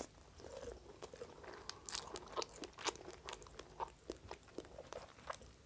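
Close-miked chewing of a toasted bakery pastry with a crisp crust: faint, irregular crunches, about three a second.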